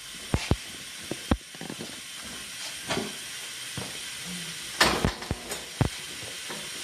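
Steady hiss of compressed air with several sharp metallic knocks and clanks, the loudest about five seconds in, from work at a pneumatic tyre changer.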